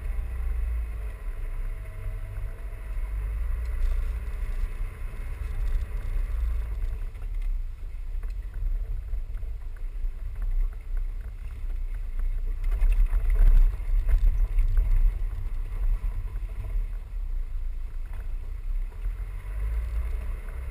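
Four-wheel-drive vehicle driving off-road across a rough field, heard from inside the cabin as a steady low rumble of engine and tyres. About thirteen seconds in it gets louder with a stretch of jolts and knocks from the bumpy ground.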